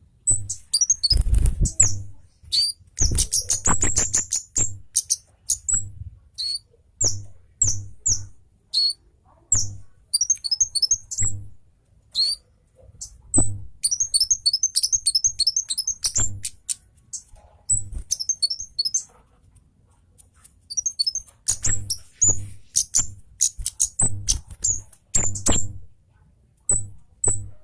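Scarlet-headed flowerpecker (kemade cabe Jawa) calling hard: rapid, sharp, high-pitched chirps, some run together into quick trills of falling notes, in bouts with short pauses between them.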